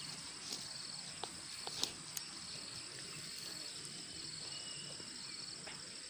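Insects chirping steadily in a fast, pulsing trill. A few sharp clicks stand out in the first couple of seconds.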